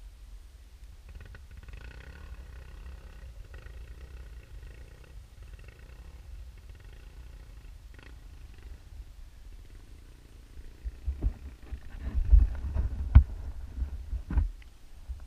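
Dirt bike engine idling, a low muffled rumble, then near the end a run of loud irregular knocks and thumps as the bike jolts over loose rock.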